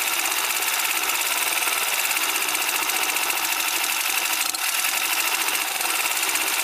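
Single-cylinder four-stroke scooter engine idling steadily with a fast, even beat, warm and running during idle-mixture adjustment at the carburettor.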